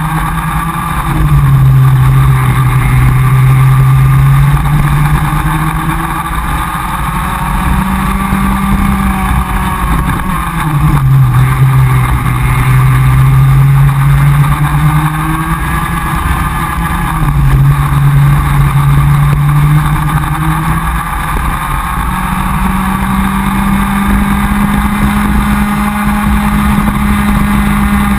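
Comer cadet kart's single-cylinder two-stroke engine, heard from on board at racing speed. It runs continuously, its pitch climbing and dropping every few seconds as the kart accelerates down straights and backs off for corners.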